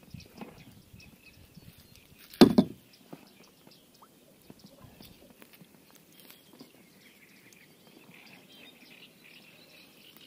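Faint handling of a wet nylon gill net being hauled by hand into an inflatable boat, with scattered light ticks and one loud thump about two and a half seconds in. Small birds chirp faintly in the background.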